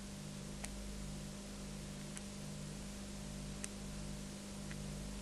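Steady low electrical hum and hiss from an old recording, with four faint, spaced-out clicks.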